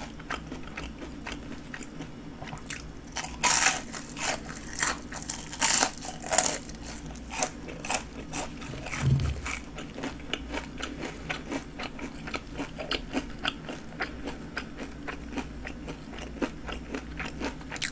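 Biting and chewing of breadcrumb-coated fried jumbo shrimp: the crisp coating crunches in a run of quick crackles, loudest in the first half, then settling into softer steady chewing.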